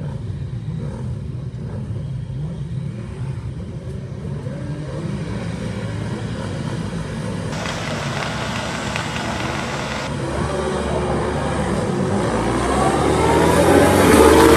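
A grid of racing sport motorcycles, with engines ticking over and blipping, then held at high revs about seven and a half seconds in. The pack launches at the race start, and many engines rise in pitch and grow louder as the bikes accelerate past near the end.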